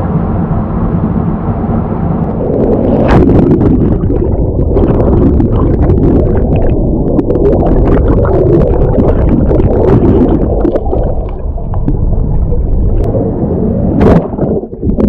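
Water churning and gurgling right against the microphone, a dense low rumble full of small crackles and pops, with a sharper clatter near the end.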